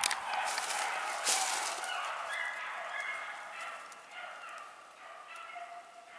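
A pack of beagles baying on a rabbit's trail, several dogs' long bawling cries overlapping, growing fainter toward the end as the chase moves off.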